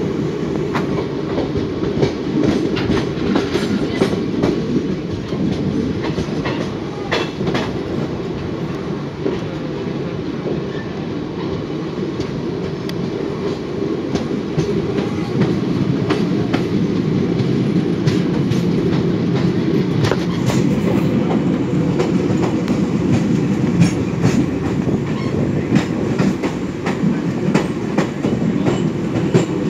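A passenger train coach running along the track, heard from its open door: a steady rumble of the wheels on the rails, with irregular clicks and clacks as the wheels pass over rail joints.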